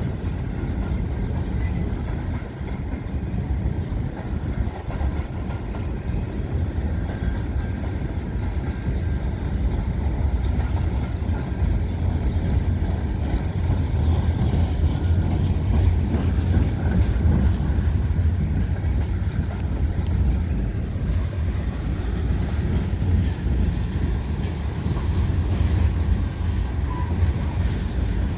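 Canadian National mixed freight train rolling past: a steady, loud rumble of railcars on the rails, with a faint wheel squeal above it.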